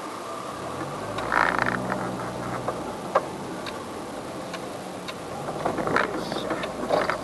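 Car driving, heard from a dashcam inside it: a steady engine and road hum that rises about a second in, with a croaky creak and scattered clicks and rattles, busiest near the end, as the car turns.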